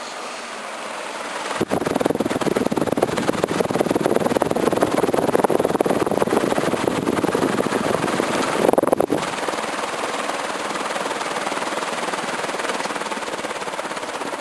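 Commander Pacific Breeze 36-inch ceiling fan running, its air rushing and fluttering on the microphone. The rush jumps louder about a second and a half in and eases slightly after about nine seconds.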